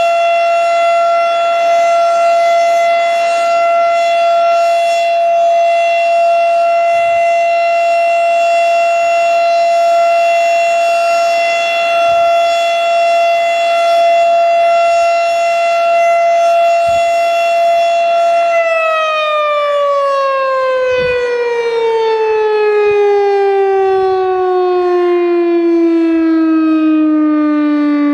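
Federal Signal STH-10A outdoor warning siren sounding its steady full-alert tone. About two-thirds of the way through, the steady tone ends and the pitch falls smoothly as the rotor coasts down after the alert is cut off.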